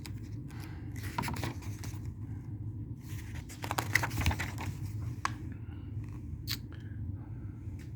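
Pages of a paperback picture book being turned and handled: scattered paper rustles and soft clicks over a steady low hum.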